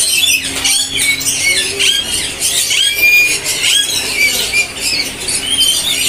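Many caged birds chirping and squawking at once, a dense, high-pitched chorus of overlapping short calls that keeps going without a pause.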